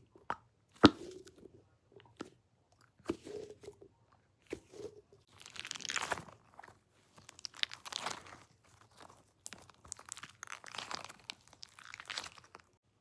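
A squishy Nee Doh-type stress toy being squeezed and handled close to the microphone. It gives irregular squishing and crackling sounds with scattered clicks, the sharpest about a second in, growing denser and busier after the midpoint.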